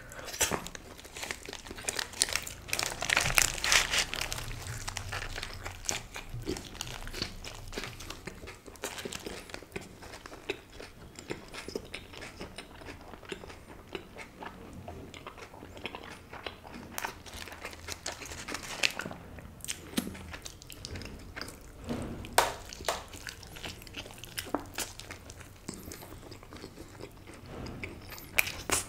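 A person biting into and chewing a sausage wrap close to the microphone: irregular wet chewing and mouth clicks, with a few louder bites.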